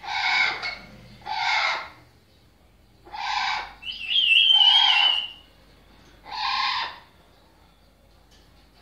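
Blue-fronted Amazon parrot making five short, hoarse calls spread over about seven seconds. A wavering high whistle sounds over the fourth call, about four seconds in.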